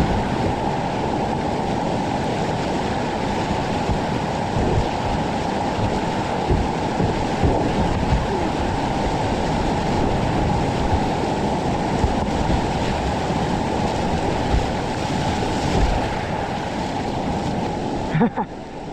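Flooded whitewater rapids rushing loudly around a kayak as it runs a wave train, with water splashing against the microphone in frequent low thumps. The rush drops off briefly near the end.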